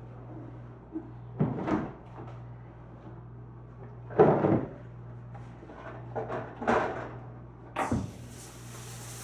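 A few short bumps and knocks in a room, four separate bursts each lasting under a second, over a steady low hum.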